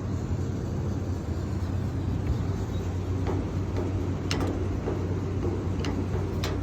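Steady low mechanical hum, with a few short sharp clicks as the access panel to a Carrier rooftop unit's compressor section is worked open.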